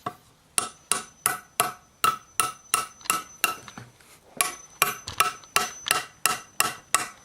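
Hammer driving nails into a wooden 4x4: sharp, ringing blows about three a second, with a short pause about halfway through.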